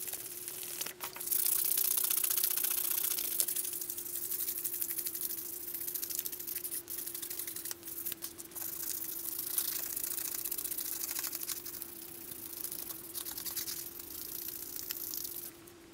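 Steel knife blade being sanded by hand with a sheet of sandpaper: quick back-and-forth rasping strokes, with a faint steady hum underneath.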